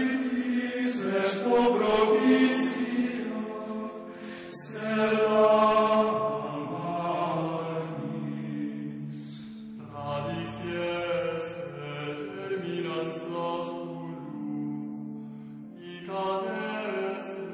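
Several voices chanting together in long held notes that change pitch every second or two, like a choir.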